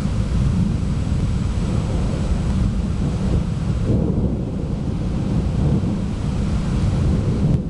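Long, low rolling rumble of thunder from a thunderstorm, holding for several seconds.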